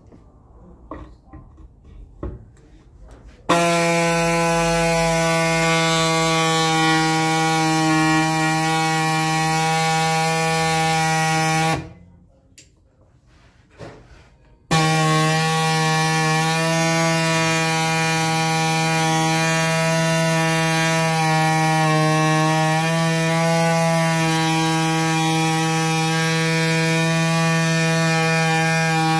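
A hose-fed handheld grinding tool running steadily at one pitch. It starts suddenly about three and a half seconds in, stops for about three seconds near the middle, then starts again. Before it starts there are faint handling sounds.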